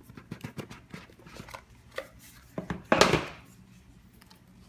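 Cardboard card-game box and packaging being handled: a string of small taps and clicks, then a louder scraping rustle about three seconds in as the box is worked free.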